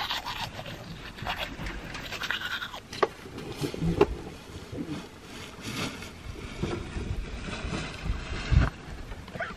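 Toothbrush scrubbing teeth for about the first three seconds, then a couple of sharp knocks and wind buffeting the microphone in uneven low gusts.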